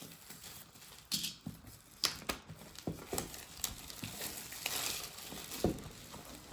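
Plastic wrapping on a keyboard box being cut and pulled off: irregular crinkling and rustling with scattered sharp clicks.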